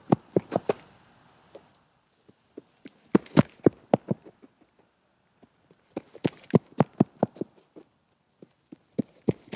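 Quick running steps striking a hard surface in bursts of about six steps a second: one burst at the start, others around three seconds in, around six seconds in and near the end. Scattered single steps fall between the bursts.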